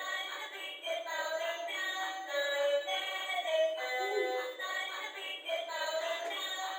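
A song with a singing voice playing, thin with no bass.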